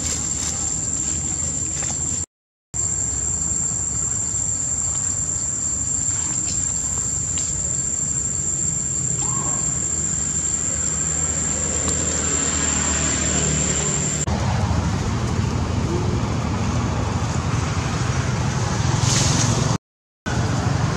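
Steady high-pitched insect drone over a low rumble. The drone stops about two-thirds of the way through, after which the rumble grows louder. The sound cuts out completely twice for a moment.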